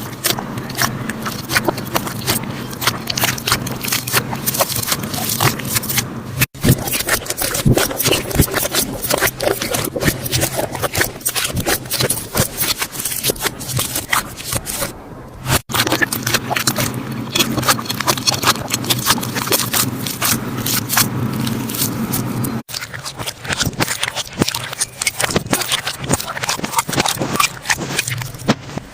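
Slime being squished and poked by hand, giving a dense stream of sticky crackles and pops, with a faint steady hum beneath. The sound breaks off briefly and restarts three times, about six, fifteen and twenty-three seconds in.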